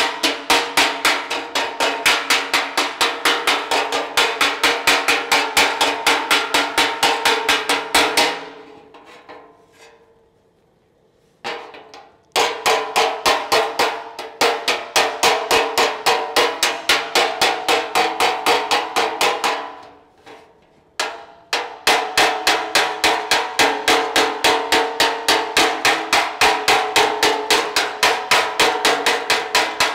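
Body hammer tapping on the steel of a Holden Torana radiator support around a welded-in repair patch: rapid, even strikes several a second, each with a metallic ring. The tapping comes in three runs, stopping for a few seconds about eight seconds in and briefly again near twenty seconds.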